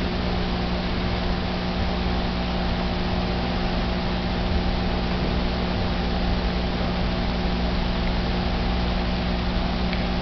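Steady machine hum with an even hiss over it, unchanging throughout.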